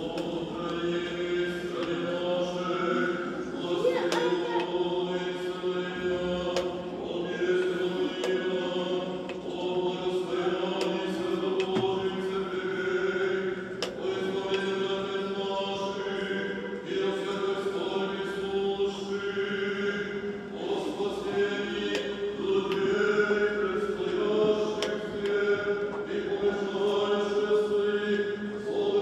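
Mixed choir singing Orthodox liturgical chant in phrases over a steady held low note, echoing in a large church.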